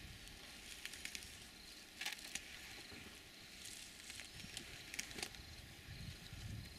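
African elephants grazing at close range, tearing and snapping grass with their trunks: soft rustling with a few sharp crackling snaps, two pairs about two and five seconds in. A faint high chirp repeats in the background.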